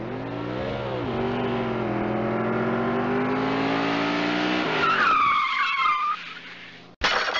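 Car engine revving up and holding at speed, then tyres screeching for about a second and fading, ending in a sudden loud crash near the end.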